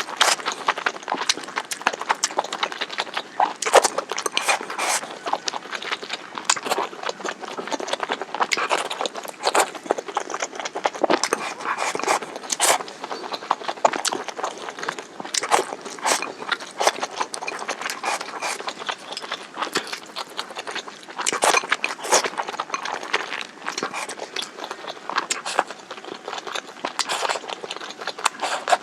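Close-miked chewing of spicy stir-fried hot pot (mala xiang guo): a continuous, irregular run of wet smacks, crunches and mouth clicks.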